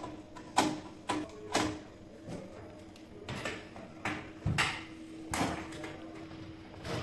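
Plastic miniature circuit breakers being pushed and snapped onto the mounting rail of an electrical distribution board. They make a series of irregular sharp clicks and knocks, some in quick pairs, with short gaps between.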